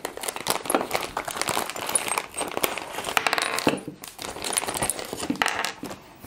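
Clear plastic zip-lock bag crinkling as it is pulled open and handled, with small metal screws and brackets clicking onto a hard table.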